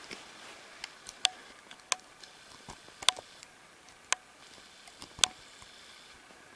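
Sharp plastic clicks, roughly one a second, as a loom hook catches and pulls rubber bands over the pegs of a plastic Rainbow Loom.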